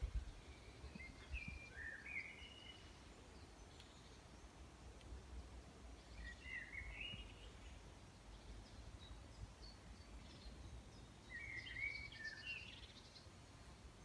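A songbird calling faintly in three short bursts of chirping notes, a few seconds apart, over a steady low rumble.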